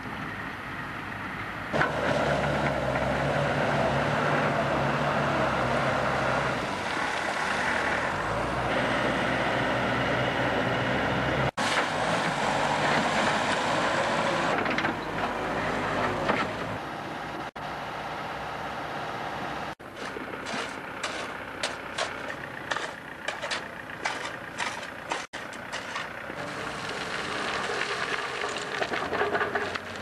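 Diesel engines of a backhoe loader and a wheel loader running under load while working gravel. From about twenty seconds in, a run of sharp clanks and knocks sounds over the engines.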